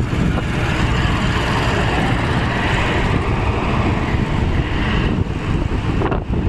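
Wind buffeting the microphone and road rumble from a Jitendra 1000HS electric scooter riding at speed, a steady rushing noise. No growl is heard from the hub motor, whose magnets have been refilled: the earlier 'ghar ghar' noise is gone.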